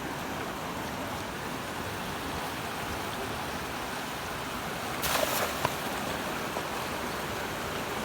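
Steady rush of flowing river water, with a brief louder noise about five seconds in.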